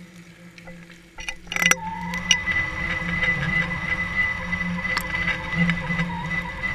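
Water rushing past a GoPro's underwater housing as it is reeled up on the fishing line. It starts with a quick clatter of knocks about a second and a half in, then settles into a steady rush with a constant high whine over it.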